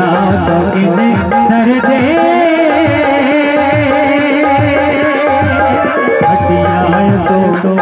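Live song: a man singing a wavering melody over harmonium and electronic keyboard, with a steady hand-drum beat.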